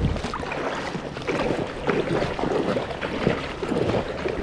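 River water rushing and splashing close to the microphone, with wind buffeting it.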